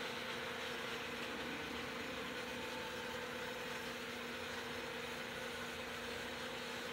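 Small electric model trains running around their track loops: steady whirring of the motors and wheels on the rails, with a constant low hum underneath.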